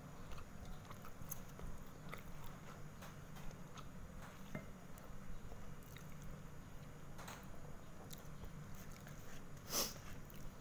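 Close-up eating sounds: chewing satay, with small clicks and taps from bamboo skewers and a spoon on the plate, and one louder knock near the end, over a steady low hum.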